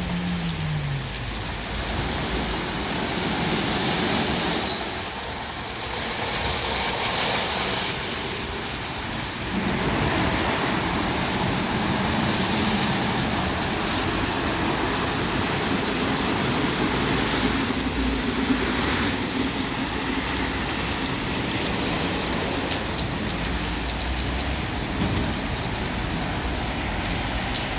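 WashTec SoftCare Pro rollover car wash running through its wash cycle: a steady hiss and rumble that swells and eases, with a brief high chirp about four and a half seconds in.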